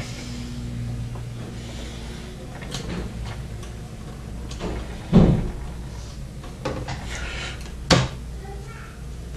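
Handling noises while the mounting screws of an aftermarket CPU cooler are tightened onto a motherboard: soft scrapes and light clicks, with two sharper knocks about five and eight seconds in, over a steady low hum.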